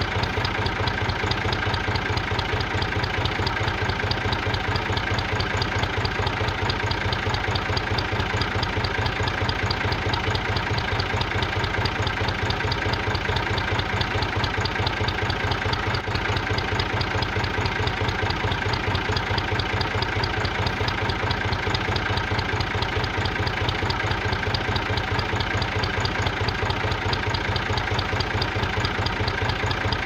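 Steady engine idle with a fast, even chugging pulse, like a tractor engine, running unchanged, with a slight break about halfway through.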